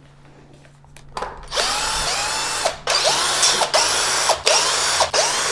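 Power drill backing out Allen screws, run in short bursts: it starts about a second and a half in, then stops and restarts about five times, its motor whine rising in pitch as it spins up each time.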